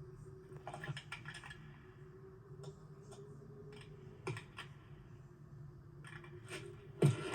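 Animated-film sound effects: light scattered clicks and scratches over a low steady hum, with one sharp, loud knock near the end.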